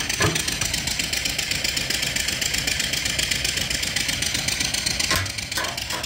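Antique-reproduction steam engine (3-inch bore, 4-inch stroke) running steadily under steam from a coal-fired boiler, with a fast, even beat. A knock comes just after the start, and two more about five seconds in.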